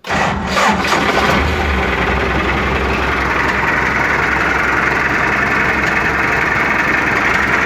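MTZ-80 tractor's diesel engine started on the electric starter: it catches within about a second of cranking and then idles steadily.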